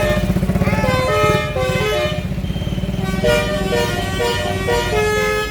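A bus's telolet horn, a Basuri-type multi-tone musical air horn, plays a tune of stepped notes, with a few swooping notes in the first second. A bus engine rumbles steadily underneath.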